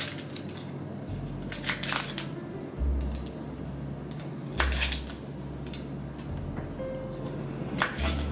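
A kitchen knife cutting a block of cold butter into cubes in a mixing bowl of crumble mix: short scraping, squishing strokes, the louder ones about two seconds in, near the middle and near the end. Background music plays underneath.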